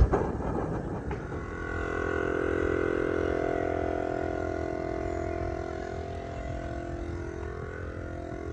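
A knock, then a brief rushing noise; about a second in, a 12-volt portable tire inflator starts and runs steadily, pumping air into the water tank, its pitch sinking slowly as the pressure builds.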